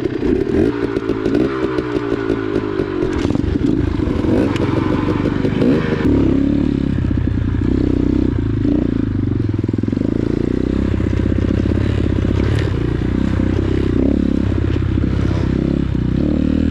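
X-Pro Titan 250cc dirt bike engine running under way, revs rising and falling through the first several seconds, then holding steadier. Scattered clicks and clatter sound throughout.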